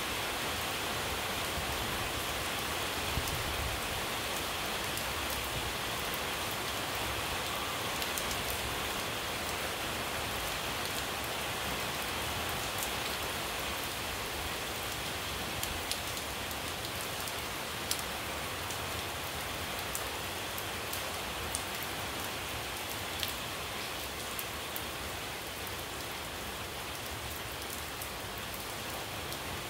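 Steady rain falling on a puddled dirt yard and leafy trees. It makes an even hiss, with a few sharp drip clicks close by.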